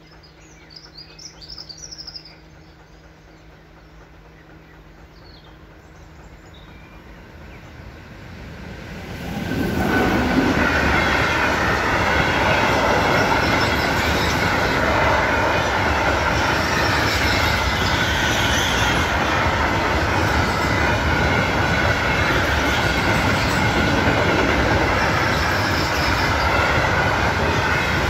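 Freight train of hopper wagons approaching and passing close by over a level crossing. A rumble builds and arrives loudly about nine seconds in, then holds as a steady heavy rolling of wheels on rails with a high wheel squeal. A few bird chirps come before the train arrives.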